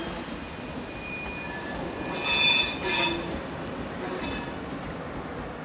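Iron-ore freight train running on the rails, with metallic wheel squeal that rises to its loudest about two to three seconds in over a steady rumble.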